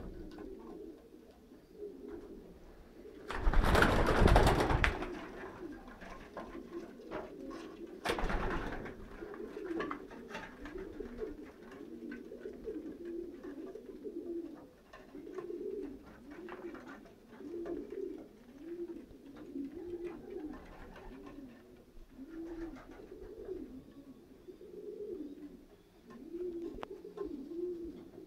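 Young racing pigeons cooing in a steady chain of short rising-and-falling coos, about one or two a second. A loud rustling burst comes about four seconds in, and a shorter one near eight seconds.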